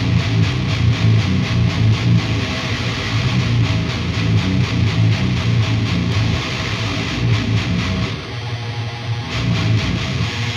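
Raw, heavily distorted electric guitar tracks from a deathcore recording session playing a chugging, rhythmic riff, really heavy. The sound thins out briefly about eight seconds in.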